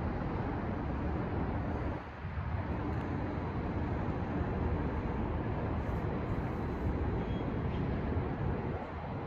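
Steady city noise: a low traffic rumble rising from the downtown streets far below, dipping briefly about two seconds in.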